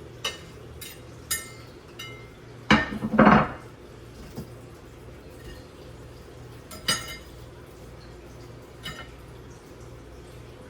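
Dishes being handled: a few sharp, ringing clinks of a plate or bowl knocking against other kitchenware, with a louder clatter about three seconds in, over a steady low hum.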